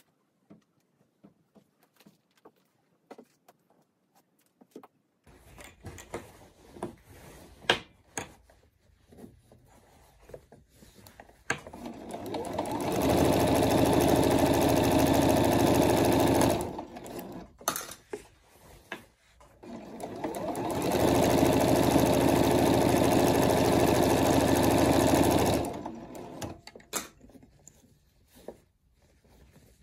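Juki HZL-G110M sewing machine stitching in two steady runs of about five seconds each, the first building up to speed. Light clicks come before and between the runs.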